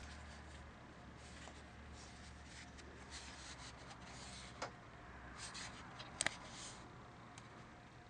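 Hands handling a flashlight with a built-in radio and siren: faint rubbing and scraping against its body, a few short clicks, and a sharp double click about six seconds in.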